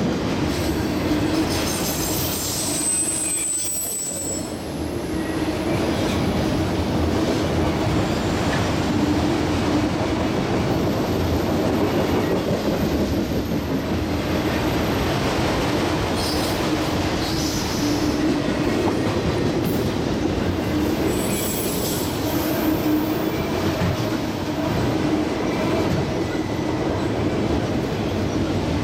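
Freight train of autorack cars rolling past at close range: a steady rumble of steel wheels on rail. Brief thin, high wheel squeals come about three seconds in, again from about eleven to sixteen seconds, and once more near the twenty-second mark.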